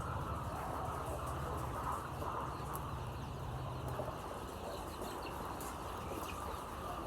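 A flock of layer chickens calling together: a dense, steady chorus of chirps. A low hum underneath stops about four seconds in.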